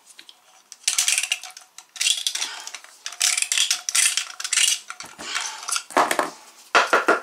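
PVC primer dauber scrubbed over a plastic PVC fitting in several rough strokes, then a quick run of metallic clinks near the end.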